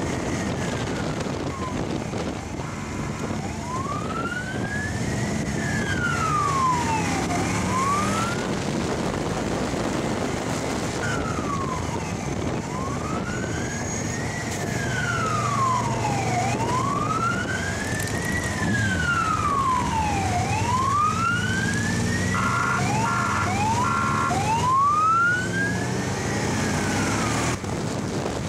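Wailing siren rising and falling slowly, one sweep every four seconds or so, over the steady hum of motorcycle engines and wind. A few seconds before the end, three short pulsed tones cut in.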